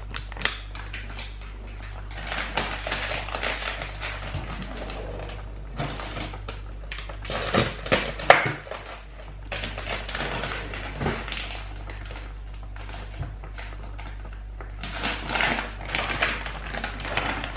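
Rustling, crinkling and clicking kitchen handling noises, with a sharp knock about eight seconds in, over a steady low hum.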